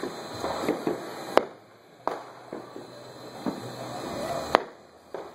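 Fireworks and firecrackers going off around the neighbourhood: a string of sharp bangs at varying distances, the two loudest about a second and a half in and near the end, with fainter pops and crackle between.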